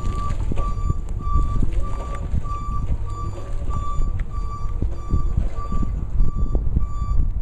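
Reversing alarm of a Linde E18C-02 electric forklift beeping steadily, about two beeps a second, as the truck backs up. Wind buffets the microphone underneath.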